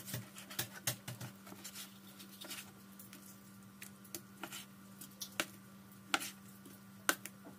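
Kitchen knife slicing raw chicken breast on a cutting board: irregular faint taps and clicks as the blade meets the board.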